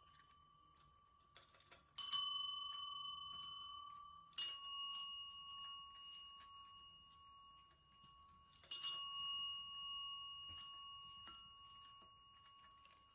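Chrome tabletop service bells struck by cats' paws three times, each strike a clear ding that rings on and fades over a couple of seconds; the cats ring them to be given food.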